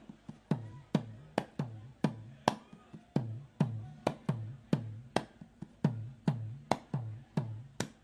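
Live music: a sparse percussion beat, sharp strikes about three a second in a syncopated pattern, each followed by a low thud, with no singing.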